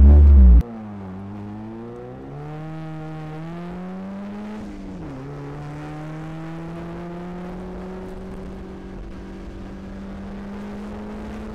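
Mazda car engine heard from inside the cabin under hard acceleration: its pitch climbs in one gear, drops at an upshift about five seconds in, then climbs slowly again in the next gear. The owner suspects a failing clutch slave cylinder. A loud low rumble fills the first half second.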